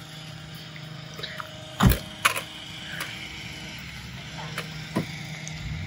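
A car door slamming shut about two seconds in, followed by a lighter second knock, with a few small clicks and a low steady hum underneath.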